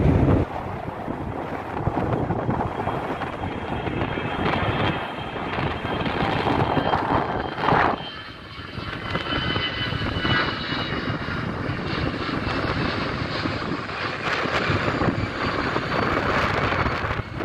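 Airbus A320 jet airliner climbing out on takeoff thrust and passing overhead: a steady jet engine noise with a high fan whine that grows stronger in the second half.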